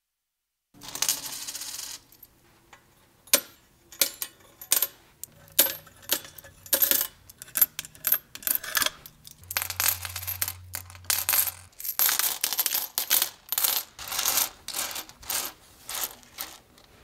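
Coins clinking into a piggy bank: a short rattling rush about a second in, then many single coins dropping and clinking one after another.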